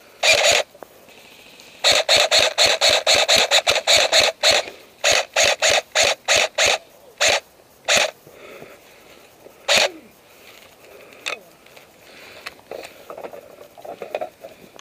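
Airsoft guns firing: a short rapid burst, then a longer one at about ten shots a second, then single shots about half a second apart, with a last shot near ten seconds in. Faint rustling and handling follow.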